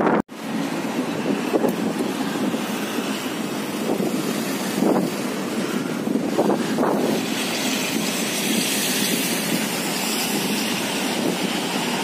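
Wind buffeting a phone's microphone outdoors: a steady rushing noise with a few louder gusts, cut by a brief dropout just after the start.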